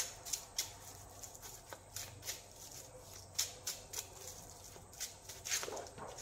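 A deck of tarot cards being shuffled by hand: a run of soft, irregular card flicks and slides, a little busier near the end.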